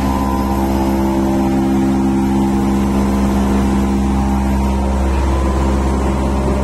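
Steady, loud hum of running machinery: electric motors or pumps holding several constant tones, unchanging throughout.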